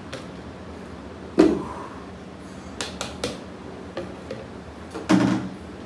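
Pink plastic storage container being handled and knocked against a stone tabletop: a sharp knock about a second and a half in, a few light clicks near three seconds, and another heavier knock just after five seconds.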